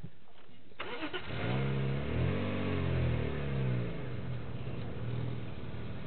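A motor vehicle engine starting up about a second in, then revving up and down.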